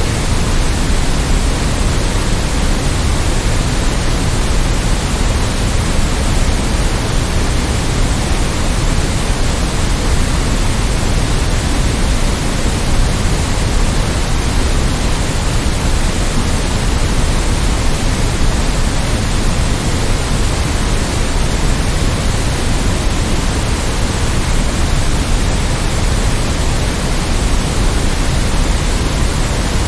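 Steady synthetic white noise: a constant, unchanging hiss spread across all pitches, with a little more weight in the bass.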